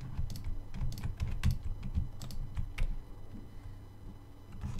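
Computer keyboard keys and mouse buttons clicking in quick, irregular strokes, thinning out for a second or so near the end, over a steady low hum.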